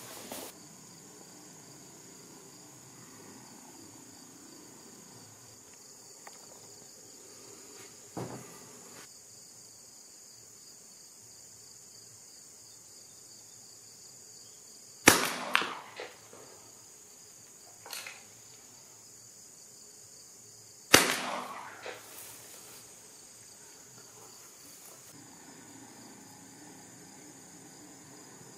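Two shotgun shots from a Fabarm shotgun, about six seconds apart, each trailing off in a short echo across open fields. A steady high insect chirring runs underneath.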